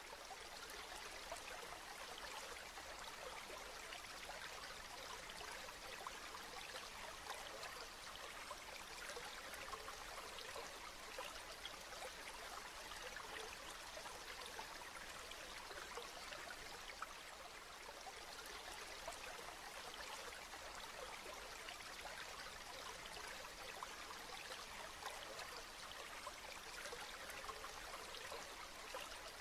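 Steady rain falling: an even hiss made up of many small drop ticks.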